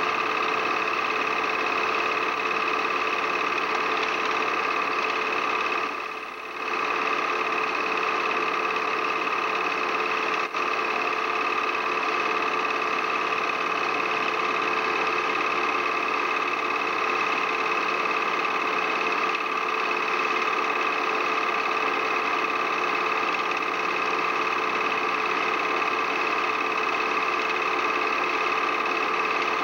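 Steady mechanical whirring and clatter of a home-movie film projector running, with a brief dip about six seconds in and a single click about ten seconds later.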